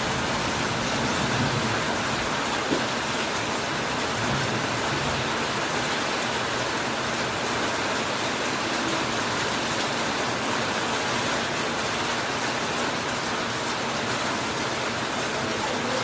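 Heavy rain falling steadily on a corrugated iron roof and broad banana leaves, an even hiss with one brief tap about three seconds in.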